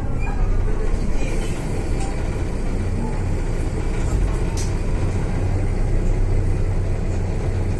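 Mercedes-Benz O530 Citaro city bus heard from inside the cabin while driving: a steady low drone of the diesel engine and drivetrain, recorded from a seat over the ZF gearbox. A single short click comes about halfway through.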